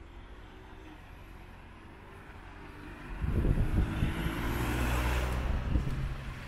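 A car passing close by: its engine hum and tyre noise swell about three seconds in, peak, and begin to fade near the end.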